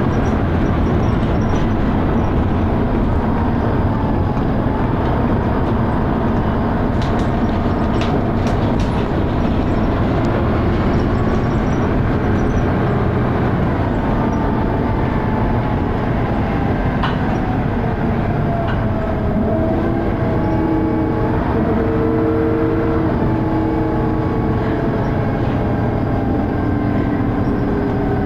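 Dennis Arrow double-decker bus under way: loud engine thrash with whining tones that rise and fall as the bus speeds up and slows through its ZF automatic gearbox. A few short clicks and rattles come through.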